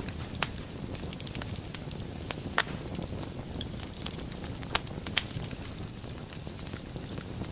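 Wood logs burning in a fireplace: a steady low rumble of flames with sharp crackles and pops at irregular intervals, a few of them louder.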